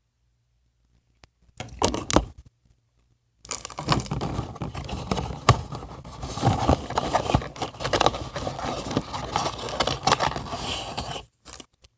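Plastic doll packaging crinkling and tearing as it is opened by hand, with scraping and many small clicks. A brief rustle comes about two seconds in, then steady crinkling from about three seconds in until shortly before the end.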